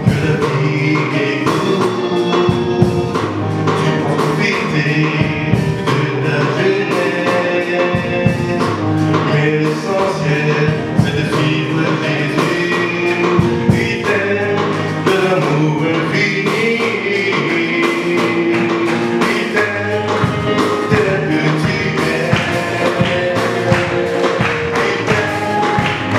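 Gospel song performed live: a man singing lead into a handheld microphone over instrumental accompaniment with a steady beat.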